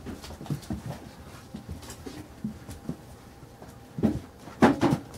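Carolina Dog puppies playing: scattered scuffles and small knocks, with a louder cluster of short puppy vocalizations about four to five seconds in.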